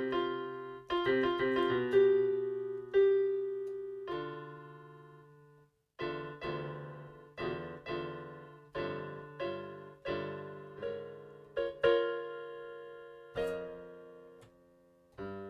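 Solo piano playing chords, each struck and left to ring and fade. The sound dies away about six seconds in, then a run of evenly spaced chords follows, with a louder chord near the end.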